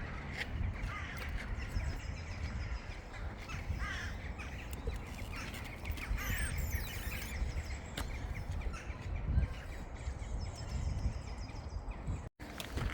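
Harsh caw-like bird calls, a few short ones, over a steady low rumble of wind or handling on the microphone.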